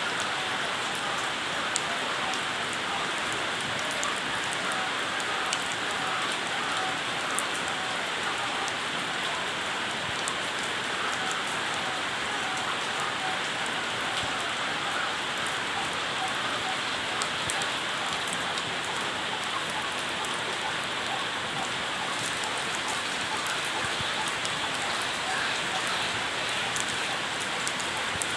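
Steady rain falling, an even hiss with scattered light ticks of drops.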